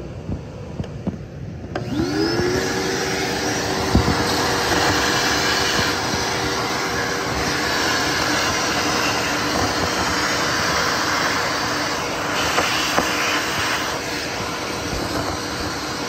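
Vacuum cleaner switched on about two seconds in, its motor whining up to speed and then running steadily as it sucks water and sludge out of a clogged air-conditioner condensate drain pan. A single sharp knock comes about four seconds in.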